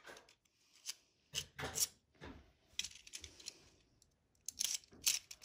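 Scattered soft plastic clicks and rubbing as a Beyblade launcher is handled and picked up, with a small cluster of clicks near the end.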